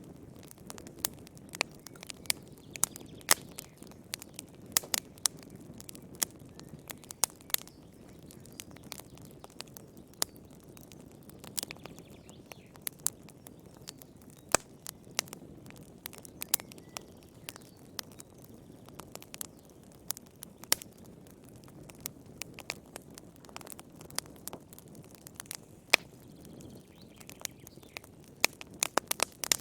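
Wood fire in a fireplace crackling steadily: frequent sharp, irregular pops and snaps over a low, soft hiss of the flames.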